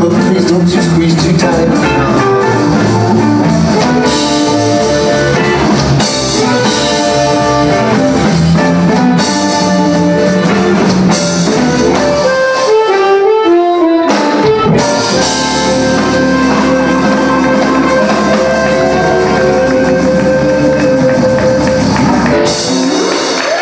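Live blues band playing, with harmonica leading over electric guitar, drums and organ. About thirteen seconds in the band drops out briefly, then comes back under a long held note until the music stops just before the end.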